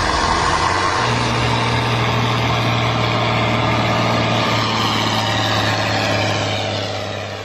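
A large vehicle engine running steadily under a dense rushing noise, with a constant low hum that sets in about a second in; it fades near the end.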